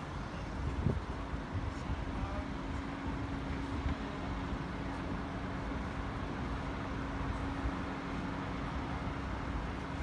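Steady vehicle engine hum at one constant pitch over a continuous wash of low traffic rumble.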